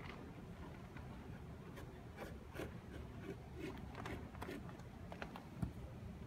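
Faint, irregular scraping and light tapping of a small toy truck being dragged across a cardboard maze floor by a magnet moved underneath.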